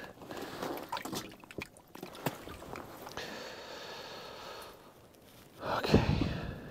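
Small splashes and drips of water at an ice-fishing hole as a perch is released back down it, with a louder low thump near the end.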